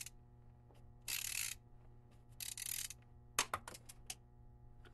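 Three short bursts of hiss, then a quick run of sharp mechanical clicks, over a faint steady low hum.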